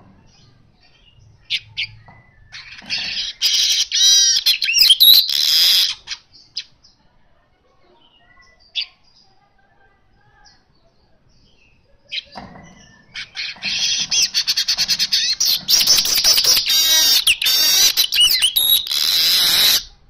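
Caged male weaver (manyar) singing vigorously in two long bouts of rapid chattering with sweeping notes. The first bout starts about three seconds in, and the second, longer one about twelve seconds in. A few single chirps fall between them.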